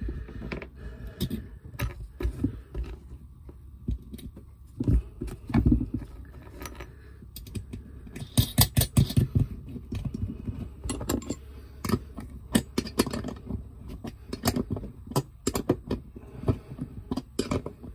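Irregular small metal clicks, clinks and taps of hand tools and hardware as a ring terminal is fitted onto a galvanic isolator's 6 mm stud and the nut is done up with a 10 mm spanner. A brief busier clatter comes about halfway through.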